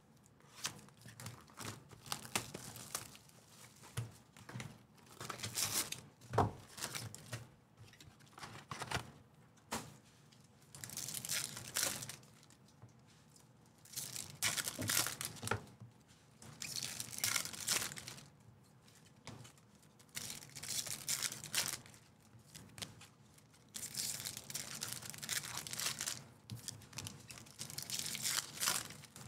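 Foil trading-card pack wrappers being torn open and crinkled, one pack after another, in repeated short bursts every few seconds.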